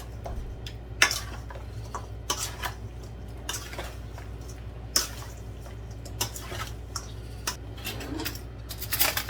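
A metal spoon clinking and scraping against a bowl in irregular knocks while stirring seasoning through raw guinea bird meat, with a steady low hum underneath.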